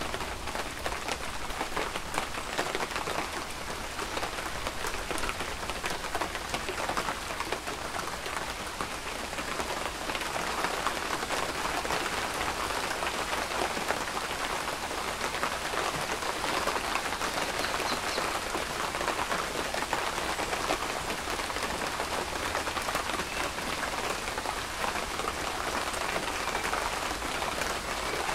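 Steady rain falling, a dense patter of drops on a surface, growing a little heavier about ten seconds in.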